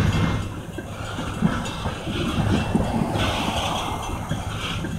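Oil train of tank cars rolling past, a continuous low rumble of wheels on rail with irregular knocks and rattling.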